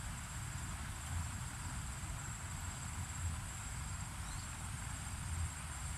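Outdoor ambience of insects trilling steadily in a high, even chorus, over a low, uneven rumble.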